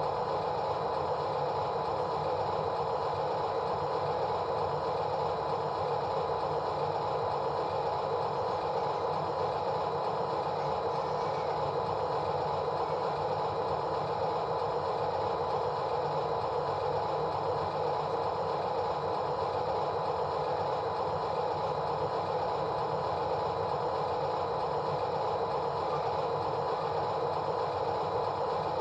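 A steady, unchanging mechanical running sound, like an engine or motor running continuously, with no breaks or changes in pitch.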